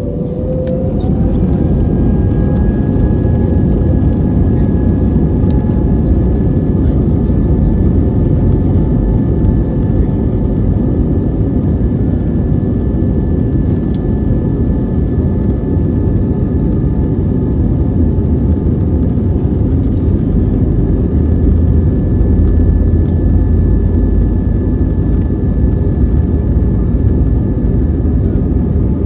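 Airbus A320neo's CFM LEAP-1A turbofan engines, heard from inside the cabin, spooling up to takeoff thrust: a whine rises over the first two seconds, then holds steady over a loud, even rumble as the jet accelerates for takeoff.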